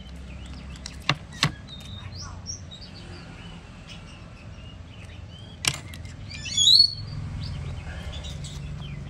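Small birds chirping in the background, with one loud, sweeping chirp about two-thirds of the way through. Three sharp clicks, two about a second in and one just before the loud chirp, over a low steady hum.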